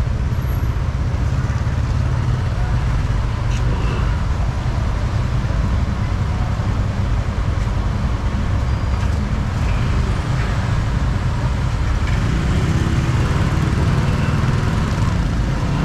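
Steady city street traffic noise: a constant low rumble of passing vehicles.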